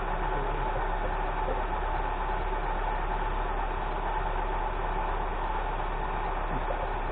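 1995 Nissan pickup's engine idling steadily on its yearly start, the first time it has run in about a year.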